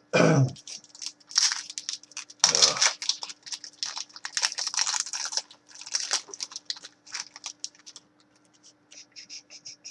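Crinkling and rustling of plastic and card packaging handled by hand, in many short bursts, with a duller knock about two and a half seconds in.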